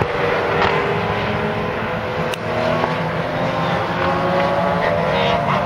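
Several race cars' engines running at racing speed around a circuit, overlapping engine notes that rise and fall in pitch as the cars accelerate and change gear.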